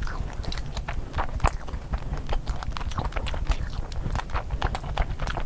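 Close-miked mouth sounds of eating: chewing and wet lip smacks, heard as a fast, irregular run of short clicks.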